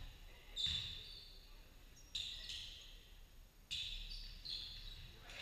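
Basketball shoes squeaking on the gym's wooden court in three short bursts of high squeaks, with a low thud of the ball near the first.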